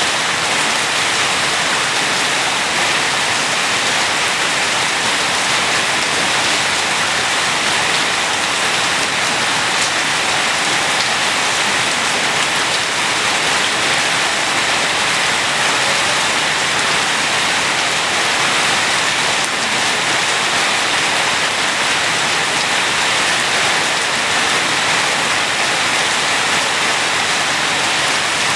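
Steady rain falling and hitting the ground, an even hiss with no breaks or distinct drops standing out.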